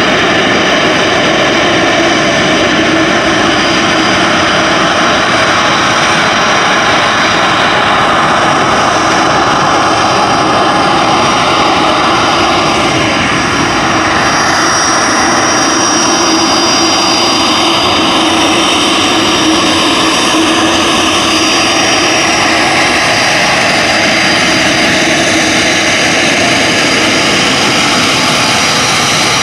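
Bombardier Challenger 604 business jet taxiing, its two rear-mounted GE CF34 turbofans running steadily and loud, a continuous rush of jet noise with a high whine on top.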